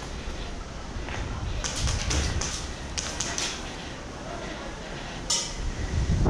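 Footsteps and gear movement of a player walking through a concrete building, with quick clusters of sharp clicks about two and three seconds in and a short high metallic ping a little after five seconds.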